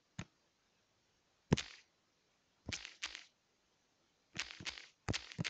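Sharp fingertip taps on a tablet's touchscreen, a few scattered single taps and then a quicker run of taps near the end as a message is typed on the on-screen keyboard.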